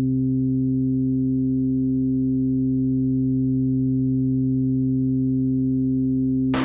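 A steady low electronic drone from the film's score, holding one pitch without change. A sharp percussive hit strikes just before the end.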